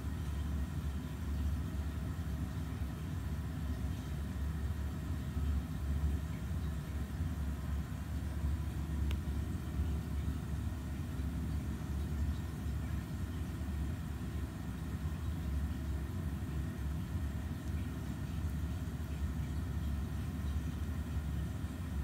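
Steady low background rumble with no clear rises or breaks.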